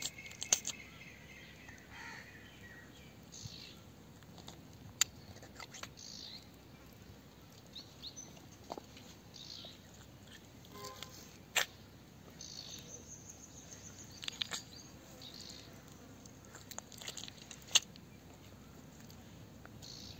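Marinated chicken being pressed by hand into a hollow green bamboo tube: faint handling sounds with a few sharp clicks. Occasional bird chirps in a quiet outdoor background.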